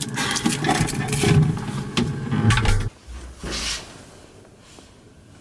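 Rustling and scraping close to the microphone as a man shifts his body and his work jacket rubs. It stops about three seconds in, with one more short scrape about half a second later.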